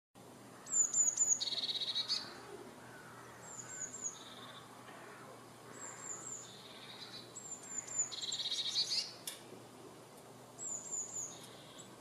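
Blue tit singing: five repeated phrases, each two to four thin, high notes followed by a lower, buzzy trill. The phrases near the start and about two-thirds of the way through are the loudest.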